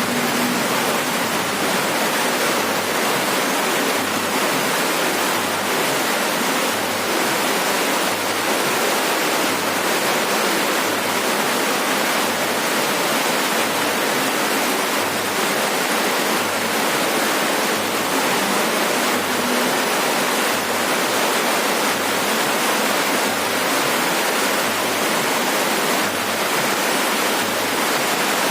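Heavy rain falling on a roof: a steady, dense hiss with no breaks.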